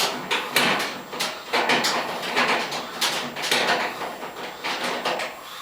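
Irregular clicks, knocks and scrapes from hands working the sheet-metal front and door-switch wiring of a gas dryer while it is being taken apart.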